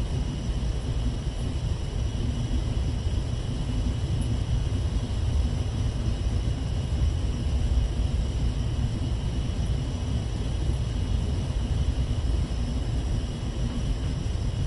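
Steady low rumble of a ship's engines and machinery heard inside a cabin, with a few faint, constant high-pitched tones on top.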